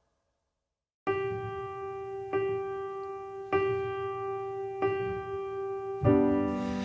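About a second of silence between songs, then a pop song's intro: a sustained electric piano chord struck again about every second and a quarter. The rest of the band comes in near the end.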